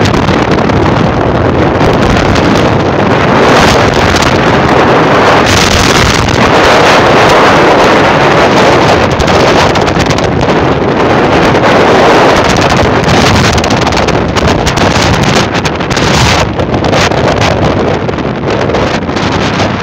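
Loud wind buffeting the microphone of a camera travelling along a road on a moving vehicle: a steady, even rush.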